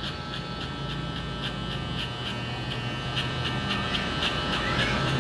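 Electric hair clipper running with a steady hum as it cuts short hair at the side of the head.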